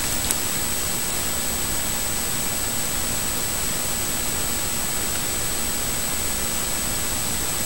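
Steady, even hiss with a thin high-pitched whine over it, and one small click shortly after the start.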